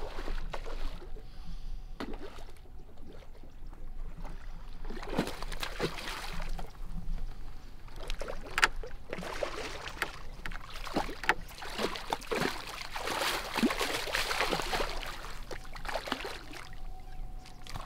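Hooked fish thrashing at the water's surface: repeated irregular splashes and sloshing water. They start about five seconds in, are thickest a little past the middle, and thin out near the end.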